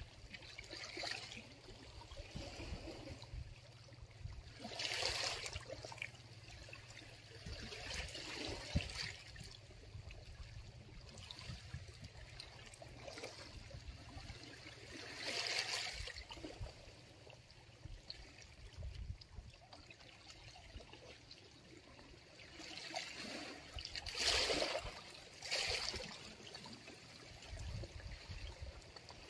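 Sea water sloshing and trickling close to the microphone, with a few louder gushes several seconds apart.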